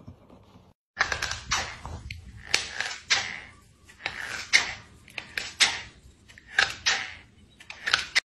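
A cat biting and tugging at a slide slipper, knocking it about: irregular sharp knocks and scuffs, roughly two a second, starting about a second in.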